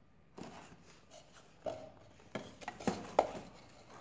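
A run of irregular clicks and knocks, about eight in all, two of them with a short ringing clink.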